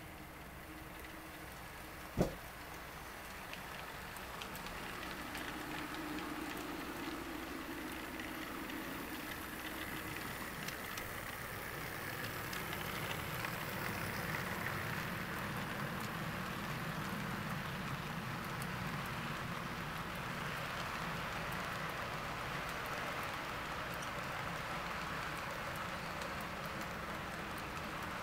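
Model coal train rolling past on layout track: a steady rattle of small wheels on the rails with fine rapid clicking, growing louder a few seconds in as the cars come by. There is one sharp click about two seconds in.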